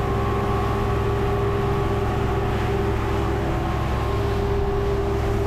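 200 hp Yamaha outboard engine running steadily at speed, with the rush of wind and wake over it.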